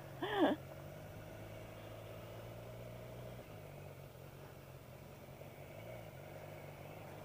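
An engine idling steadily at low level, its pitch shifting slightly about three and six seconds in, with a brief voice right at the start.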